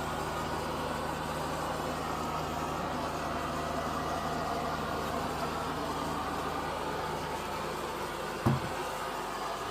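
EZVIZ RE5 Plus robot vacuum cleaner running steadily: a low motor hum under an even whooshing noise. A single low thump comes near the end, after which the low hum drops away.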